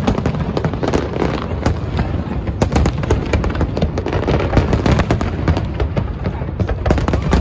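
Fireworks display over water: a dense, unbroken run of aerial shells bursting, many sharp bangs and crackles overlapping several times a second.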